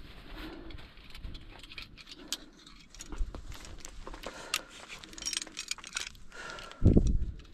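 Metal mountaineering gear clinking and jangling in short irregular clicks, with a brief loud low rumble on the microphone near the end.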